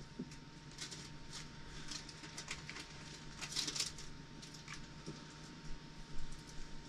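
Faint scattered clicks and handling sounds from a hot glue gun being squeezed and worked around a fitting on a plastic cooler, over a steady faint hum.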